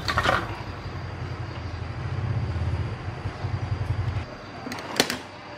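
Transformer soldering gun humming steadily at a low pitch while in use, cutting off a little over four seconds in. A brief scratchy noise right at the start and a sharp click near the end.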